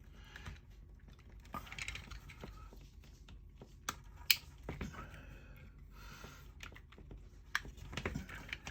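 Small plastic clicks and handling as an RV wall outlet's housing and cover pieces are fitted and snapped together, with one sharper click a little before the middle.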